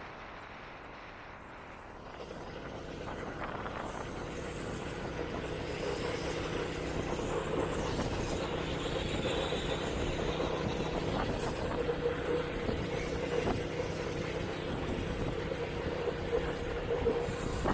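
A motor vehicle engine running steadily, growing louder from about two seconds in.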